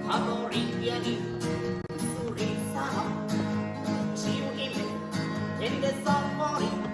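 Background music: an upbeat song with strummed acoustic guitar and a steady beat.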